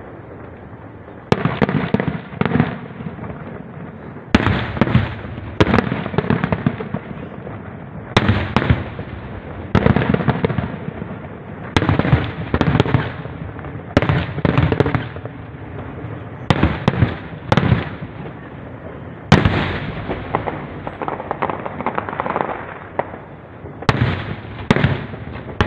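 Aerial fireworks shells bursting one after another: more than a dozen sharp booms, starting about a second in and coming every second or two, each trailing off in a rumbling echo.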